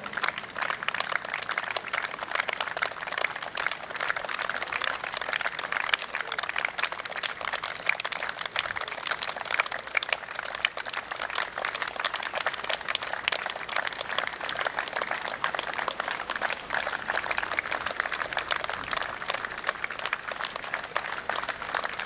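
A large crowd applauding steadily, many people clapping at once.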